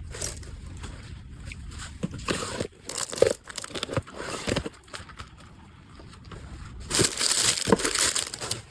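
Plastic packaging crinkling and rustling as items are handled and packed, in several bursts with a few light knocks; the longest and loudest rustle comes near the end.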